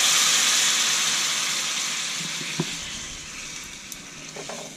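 Whisked buttermilk pouring into a steel kadai of hot fried masala, hissing loudly as it hits the pan and dying away steadily as the liquid covers the masala. A wooden spatula knocks once about halfway and scrapes near the end.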